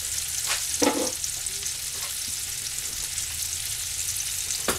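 Ribeye steaks frying in olive oil and butter in a hot cast-iron skillet: a steady sizzle, with a few short knocks about half a second in, just under a second in, and near the end.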